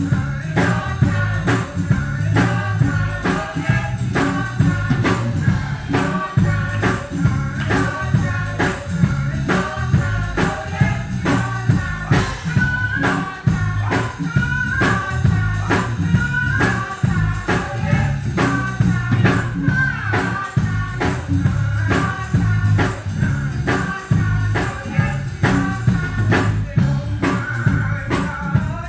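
Church gospel band with singers: a drum kit keeps a steady beat under a sung melody, with guitar.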